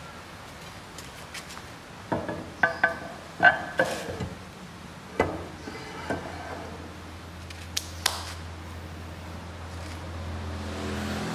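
Heavy cast-iron lathe cross-slide being set down and slid onto the carriage saddle's ways: a run of metal-on-metal clanks with brief ringing, the loudest bunched between about two and four seconds in, then a few lighter knocks.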